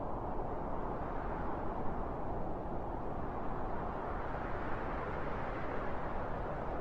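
Soft, steady wind: a low rushing noise that swells gently around the middle.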